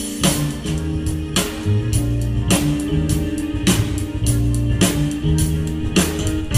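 Live band playing: electric guitar and bass guitar over a drum kit keeping a steady beat, with the drum strokes about two a second.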